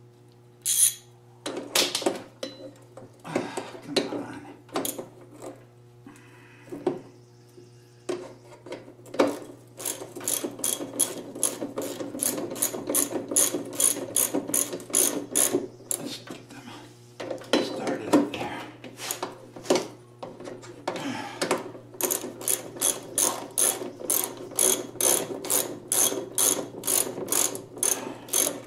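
Hand socket ratchet clicking as it runs in the bolts of a go-kart rear axle's flanged bearing carrier. Scattered clicks and knocks come first, then long runs of quick, even clicks at about three or four a second, with a short break in the middle.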